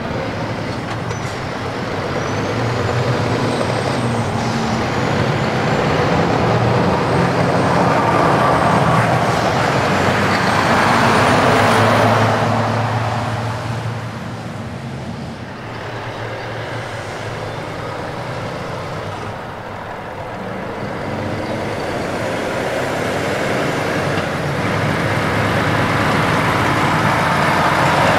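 Articulated trucks passing on the road: diesel engine and tyre noise build to a peak about twelve seconds in as one truck goes by and fades, then another truck approaches and grows louder near the end.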